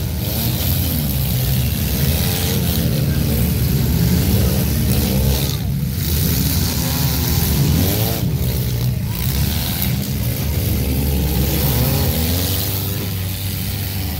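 Demolition derby car's engine heard from inside the cabin, running hard over a heavy low rumble, its pitch rising and falling again and again as it is revved.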